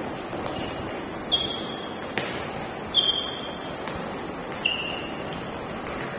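Running shoes landing and squeaking on a gym floor during quick hops over mini hurdles: sharp footfalls, three of them with a short high squeak, over a steady hiss.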